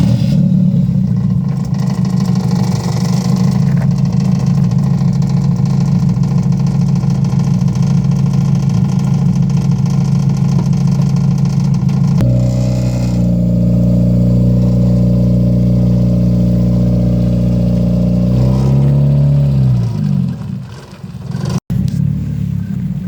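Freshly rebuilt Mazda Miata four-cylinder engine running under way at steady revs. Its note changes abruptly about halfway through, then the pitch falls and dips near the end as the car changes speed.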